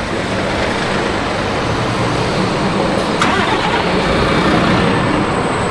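Steady road-traffic noise of cars on a city street: a continuous rush of engines and tyres, with a short sharp click about three seconds in.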